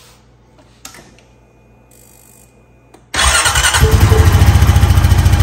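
Honda Foreman 520 ATV's single-cylinder engine starting about three seconds in and running with a fast, even pulse, fired up right after fresh oil has been put in.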